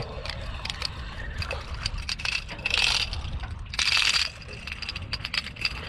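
Wind rumbling on the microphone with scattered small clicks and knocks. About three and four seconds in come two short, hissing splashes as a small hooked speckled trout thrashes at the surface beside the boat.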